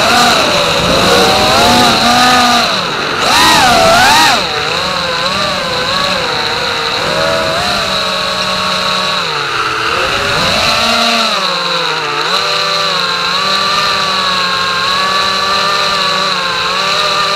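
Brushless motors of a 5-inch FPV racing quadcopter (Racerstar BR2307S 2500KV, DalProp Cyclone tri-blade props) whining, the pitch rising and falling with the throttle. A loud surge of rising whine about three to four seconds in, then a steadier hovering whine with small dips.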